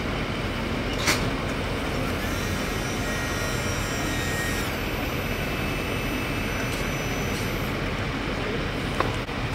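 Steady street noise of running vehicles, a constant rumble and hiss, with a sharp tick about a second in and another near the end.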